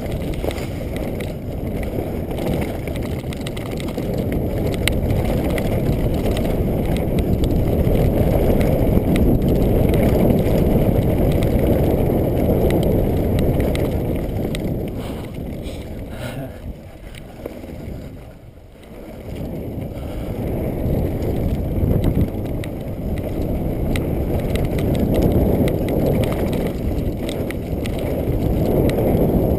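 Mountain bike descending a dirt downhill trail at speed: wind rushing over the action camera's microphone together with tyre rumble and rattling of the bike. The noise eases for a few seconds a little past halfway, as the bike slows, then builds again.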